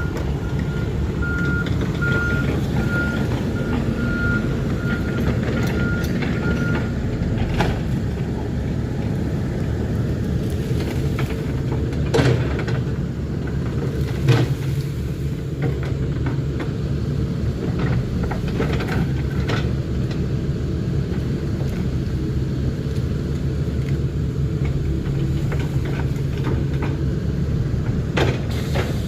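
Excavator's diesel engine running steadily under load, with a warning alarm beeping for the first several seconds. A few sharp knocks stand out over the engine.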